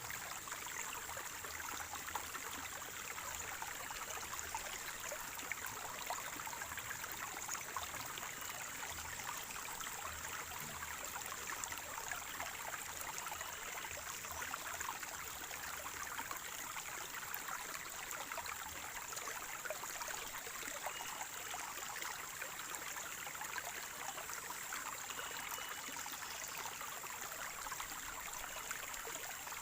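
Small spring-fed stream gurgling and splashing steadily over stones, a continuous bubbling rush of water.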